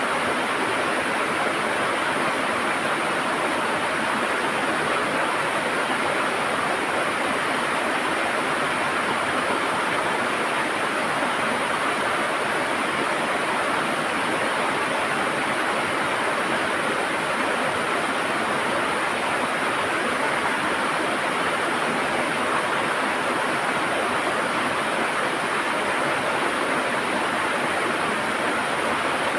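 River water rushing and gurgling steadily, an even, unbroken wash of noise.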